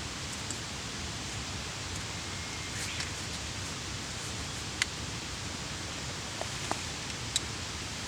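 Cooking over a wood campfire: a steady sizzling hiss with a few sharp crackling pops scattered through it.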